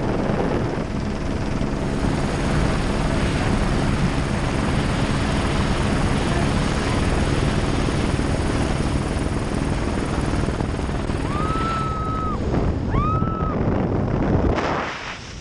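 Helicopter engine and rotor running loud and steady, heard from inside the cabin with the door open and wind noise, which falls away just before the end as the skydivers leave the aircraft. Two short high-pitched whoops come near the end.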